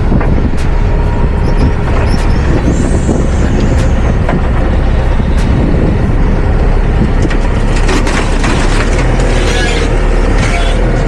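Forklift engine running under load, with strong wind buffeting the microphone and a few scattered knocks.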